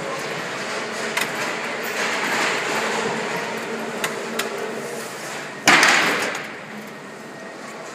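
Battery-change trolley being worked up against a forklift's battery compartment: a steady mechanical hum with a few light knocks, then one loud metal clank a little past halfway that rings out for about a second.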